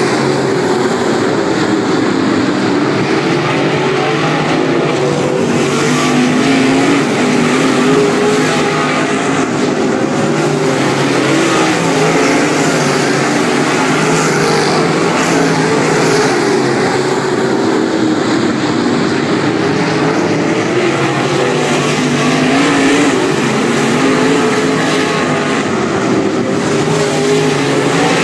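A pack of UMP dirt modified race cars' V8 engines racing around a dirt oval, loud and continuous. The engine notes rise and fall as cars pass and circle the track.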